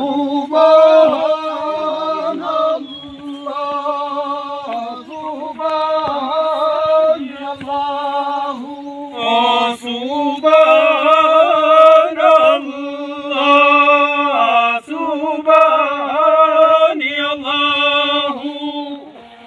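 Men's voices singing a chant-like song without instruments, in phrases of long held and bending notes separated by short breaths.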